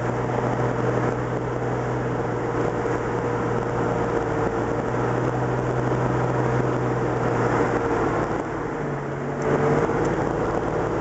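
Vehicle engine running steadily with road noise while driving; the engine note shifts briefly about nine seconds in.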